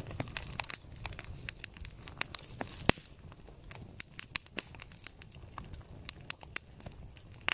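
Campfire crackling, with scattered sharp pops; the loudest comes about three seconds in.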